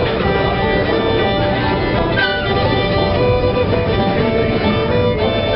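Bluegrass-style music led by a fiddle, playing steadily.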